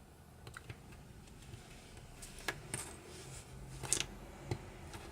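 Small plastic LEGO pieces clicking and tapping as they are handled and pressed together, a few separate sharp clicks with the loudest about four seconds in.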